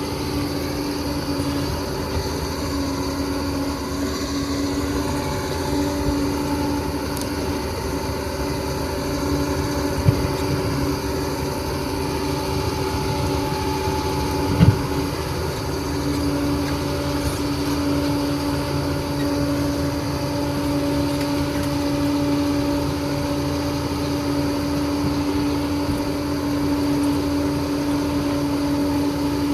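Steady machine hum, like a motor or engine running at constant speed, with two short knocks about ten and fifteen seconds in.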